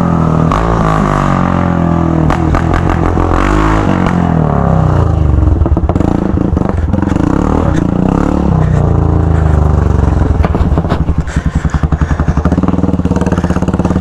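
Straight-piped Yamaha XT trail bike's single-cylinder engine, ridden and revving up and down through the gears. Near the end it drops to a choppy, pulsing chug at low revs.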